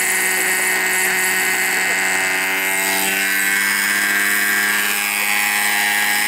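OS MAX-46FX-H two-stroke glow engine of a scale RC helicopter running fast with the rotor blades spinning, as the helicopter lifts off into a low hover. The engine note shifts in pitch about halfway through.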